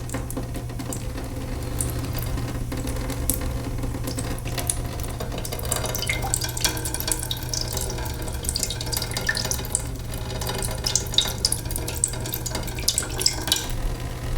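Water leaking from a sink: irregular drips and small splashes with a running trickle, denser from about halfway through, over a steady low hum.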